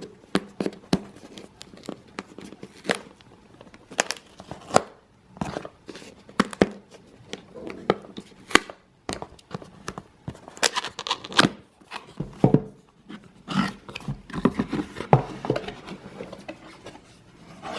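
Cardboard phone box being opened and unpacked by hand: irregular rustling, crinkling of plastic wrap and sharp clicks of cardboard flaps and packaging being handled.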